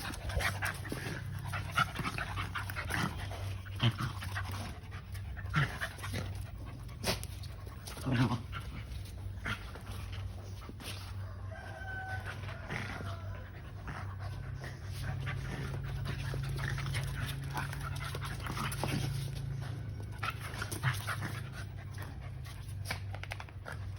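Two dogs fighting, with irregular sharp scuffles and short dog sounds, strongest in the first eight seconds, over a steady low hum.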